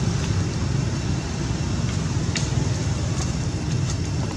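Steady outdoor background noise: a low rumble with a few faint clicks.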